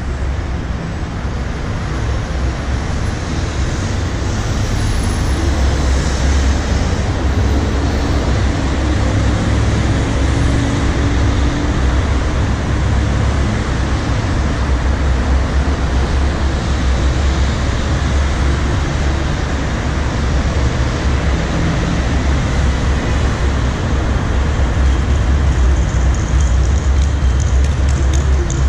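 Steady low rumble of road traffic and idling car engines around a car stopped in queued traffic.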